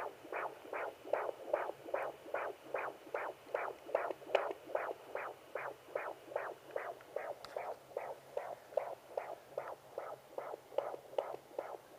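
Unborn baby's heartbeat at 22 weeks' gestation, heard through a handheld fetal doppler's speaker: a fast, regular pulse of about two and a half beats a second, around 140 to 150 beats per minute.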